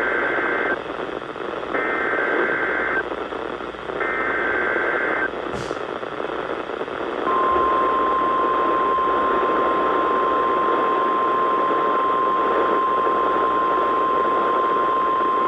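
NOAA Weather Radio warning alarm test heard through a weather radio receiver with steady static hiss. There are three short bursts of SAME (Specific Area Message Encoding) header data about a second apart, the first already underway. Then, from about seven seconds in, the steady 1050 Hz warning alarm tone starts.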